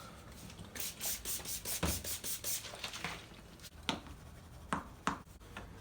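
Clay bar rubbed back and forth over a plastic headlight lens to lift surface contamination: a quick run of rubbing strokes, then a few sharp knocks.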